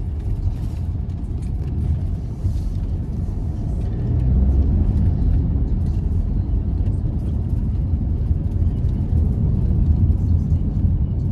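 Car's road noise heard from inside the cabin while driving: a steady low rumble of engine and tyres, a little louder from about four seconds in.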